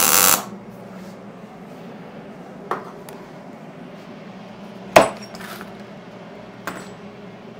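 Wire-feed (MIG) welding arc crackling and cutting off about half a second in. Then a few metal clinks, the loudest a sharp clank about five seconds in, as the locking pliers are unclamped from the freshly welded steel plate and set down.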